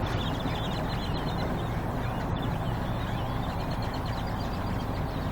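A large flock of black birds calling all at once, many short chirps overlapping into a constant chatter, over a steady low hum.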